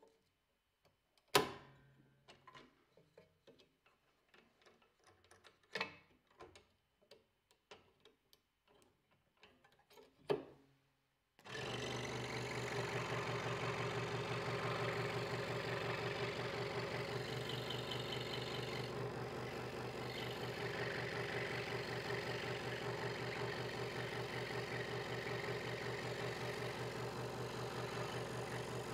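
Scattered knocks and clicks of wood pieces being handled on a bench, with one sharp knock near the start. About a third of the way in a Hegner Multicut 2S scroll saw starts suddenly and runs steadily with a low hum, its reciprocating blade cutting a thin wooden blank.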